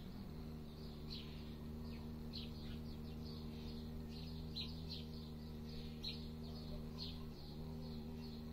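A man humming one low, steady note with his lips closed, breaking off briefly and resuming slightly higher about seven seconds in. Small birds chirp repeatedly over it.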